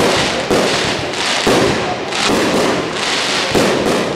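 Fireworks display going off: a rapid, continuous run of overlapping bangs and crackles, several a second.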